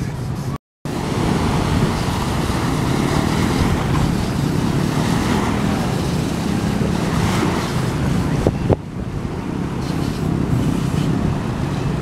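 Surf breaking and washing up the beach as a steady rush of water, with wind on the microphone. The sound cuts out for a moment about half a second in.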